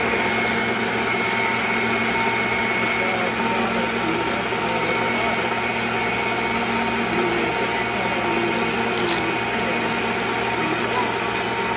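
Gemini Taurus wet ring saw with a diamond ring blade running steadily while a sheet of glass is fed into the blade under a flow of water. The steady whine starts suddenly just before and does not change.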